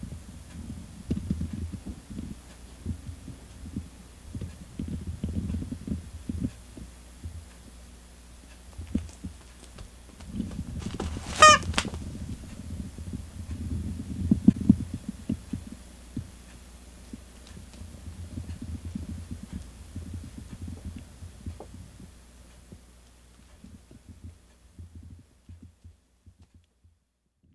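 Soft, irregular low thumps and rumbles of a cat moving about on a cork floor with a stick toy, with one brief high-pitched chirp about eleven seconds in.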